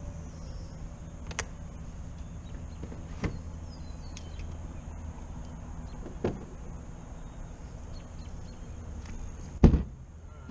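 Steady low hum of a bass boat's electric trolling motor. Four knocks on the boat's deck break through it, the loudest just before the end.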